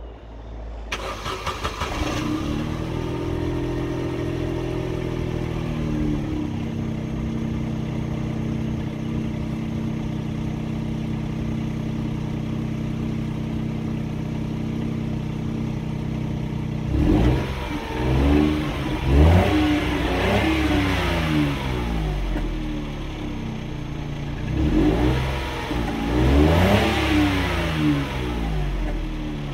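Vauxhall Corsa B engine heard at the tailpipe through an aftermarket stainless steel exhaust tip. It starts about a second in and runs at a raised idle that settles to a steady idle after a few seconds. Later it is revved twice, each time with several quick blips that rise and fall.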